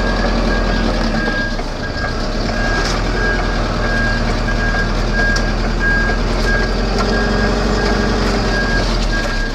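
Reversing alarm on a DAF LF 12-tonne rigid truck: one steady high beep repeating evenly while the truck backs slowly. Beneath it the diesel engine runs steadily at low revs.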